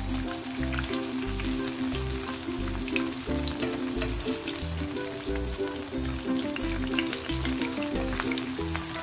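Battered sweet potato sticks frying in hot oil in a pan: steady sizzling with fine crackles, while a spatula now and then turns them. Background music with a steady beat plays underneath.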